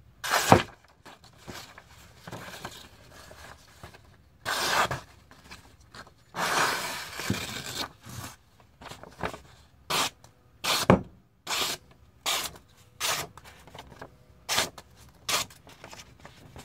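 Knife blade slicing through sheets of notebook paper as a sharpness test: a series of about a dozen short, quick paper-cutting rasps, with one longer drawn-out cut about six seconds in.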